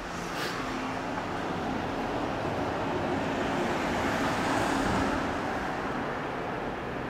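Road traffic noise from the street, heard through an open balcony door, swelling to a peak about two-thirds of the way in and easing off as a vehicle passes.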